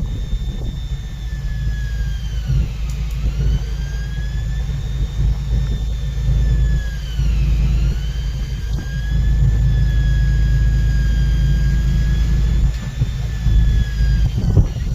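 Steady low rumble of a fishing boat's engine at sea, with a high motor whine over it that twice dips sharply in pitch and climbs back.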